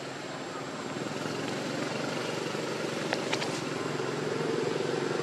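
A steady engine drone that grows gradually louder, with a few light clicks a little past the middle.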